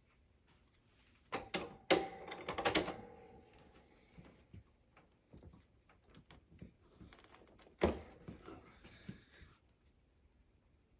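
Scattered clicks, knocks and rustling in a small room, in two bursts, the sharpest knocks about two seconds in and again about eight seconds in.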